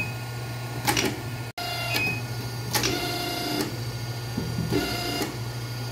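Hydraulic hose crimping machine running, its motor and pump humming steadily. A whining surge of load comes about three seconds in, with a few short clatters before and after.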